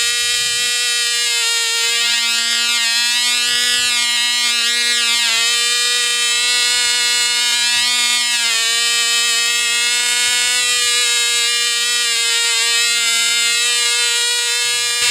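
Engine of a Sterling Ringmaster control-line model airplane running flat out in flight: a steady high-pitched whine that dips slightly in pitch twice as the plane circles.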